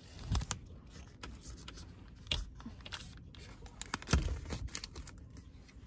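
Scattered light clicks and rustling, with three dull thumps: one just after the start, one a little past two seconds in and the loudest just after four seconds.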